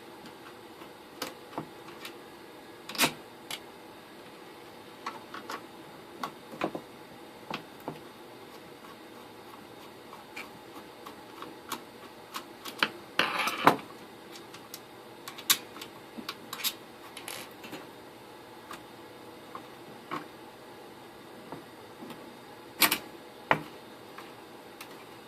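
Scattered clicks, taps and clatters of small parts and tools being handled inside an opened network switch's metal case, with a longer rattling scrape about halfway through.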